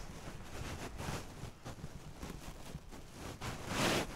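Crinkly rustling of the nylon hammock windsock fabric over a low rumble of wind, with a louder rush of noise near the end.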